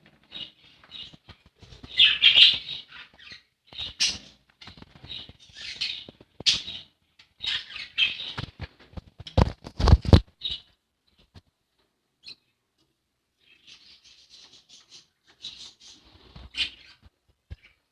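Pet budgerigars chirping and chattering in short bursts, with a few sharp knocks and flutters about halfway through, then a short lull before the chirping resumes.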